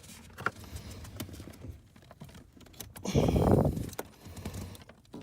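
Small clicks and rattles of hands working the plastic wiring-harness connector off a C6 Corvette's accelerator pedal assembly under the dash. Near the middle comes a louder rubbing noise lasting about a second.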